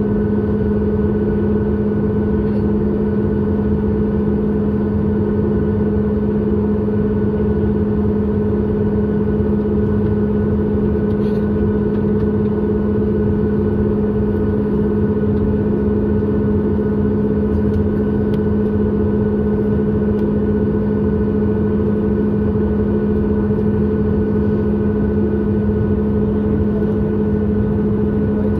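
Cabin noise of a Boeing 737 MAX 8 taxiing with its CFM LEAP-1B engines at idle: a steady rumble with a constant low drone and a higher hum over it.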